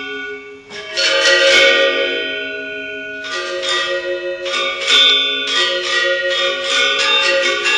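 Balinese gender wayang music: bronze-keyed metallophones struck in quick patterns, their tones ringing on. The playing dips briefly about half a second in, then comes back in with fresh strikes.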